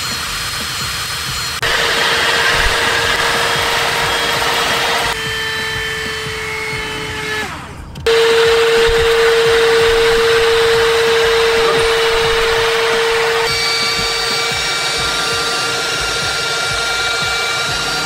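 Cordless handheld car vacuum cleaners running one after another as they suck road dust and gravel off carpet: a steady motor whine with rushing air that changes abruptly four times as each model takes over. About seven seconds in, one motor winds down, falling in pitch, before the next starts. The Tusa, running through the middle of the stretch, is the loudest.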